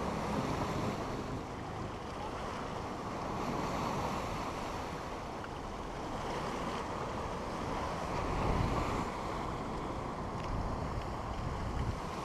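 Sea waves breaking and washing over a stone breakwater, with wind buffeting the microphone. The surf swells loudest about eight seconds in.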